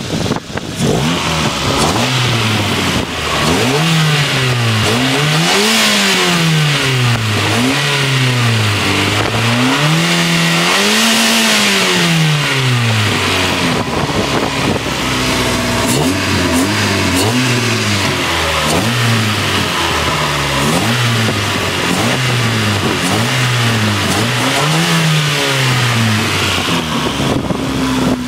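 Opel Corsa B's C20XE 2.0-litre 16-valve four-cylinder engine revved repeatedly and loudly. It gives two long climbs and falls in the first half, then a run of quick throttle blips about one every second and a half.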